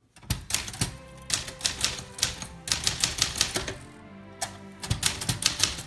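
Manual typewriter being typed on: runs of sharp key strikes in quick succession, with a short pause a little past the middle, over background music.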